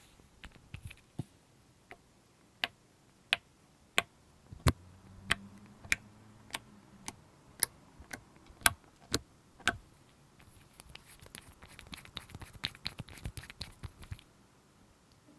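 Sharp, separate clicks and taps of small objects being handled, roughly one every half second or so, then a quicker flurry of smaller clicks near the end.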